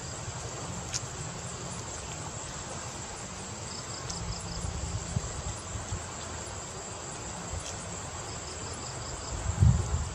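Insects calling from the reeds: a steady high-pitched buzz, with a short pulsed chirp twice. Under it is a low rumble, and a single low thump near the end.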